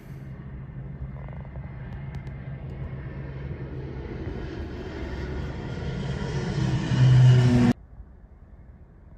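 Small twin-engine turboprop airplane approaching overhead: a low, steady engine-and-propeller drone that grows louder as it nears, then cuts off abruptly about three-quarters of the way through, leaving only faint background noise.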